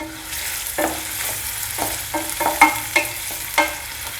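Sliced onions sizzling in hot oil in a pan as they are sautéed and stirred, with a steady frying hiss and a dozen or so quick knocks and scrapes of the stirring utensil against the pan.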